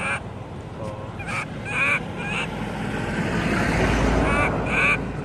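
Baby long-tailed macaque crying: short, high, wavering cries repeated in small groups. A low rumble swells in the background around the middle.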